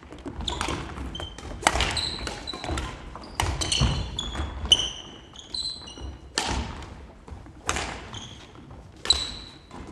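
Badminton rally in a sports hall: sharp racket strikes on the shuttlecock about every second and a half, with shoes squeaking and feet thudding on the court floor, echoing in the hall.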